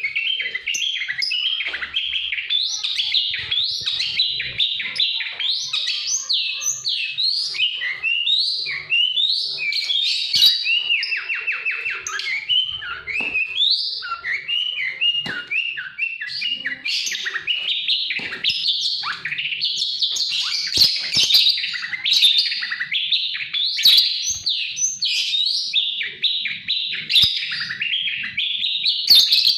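Songbird singing a fast, continuous song of chirps, trills and short whistled notes, without a break.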